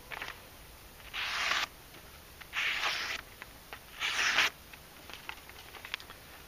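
Elmax steel knife blade slicing through a sheet of copy paper three times, each cut a short rasp of about half a second, with light paper rustles after. The edge carries small chips from being driven into bamboo knots.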